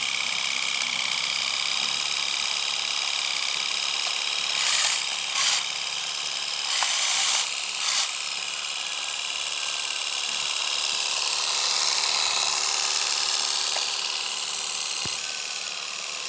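Small electric motors of a model Kubota DC-70 Plus combine harvester whining steadily, with thin high tones and little bass. Brief louder surges of hissing noise come twice, about five and about seven seconds in.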